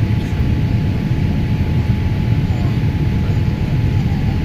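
Steady low rumble of engine and airflow noise inside a Boeing 787 Dreamliner's passenger cabin on final approach, with a faint steady whine above it.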